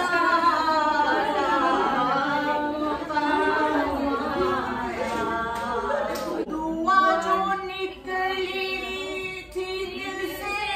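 Several women's voices singing devotional verses together, unaccompanied, in a naat recitation read from a sheet.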